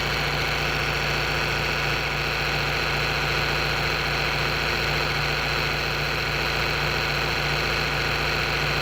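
John Deere 410 loader backhoe engine idling steadily.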